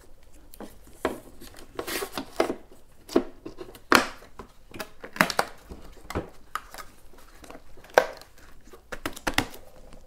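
Irregular plastic clicks, knocks and crinkling as the plastic-wrapped battery pack and the metal trolley handle are shifted and pressed into place inside an electric unicycle's shell. The sharpest knocks come about 4 s in and again about 8 s in.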